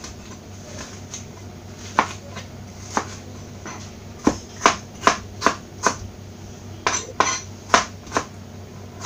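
Kitchen knife chopping a tomato on a plastic cutting board: sharp taps of the blade striking the board. There are a few spaced-out strokes at first, then a quicker run of about two to three strokes a second from about halfway through.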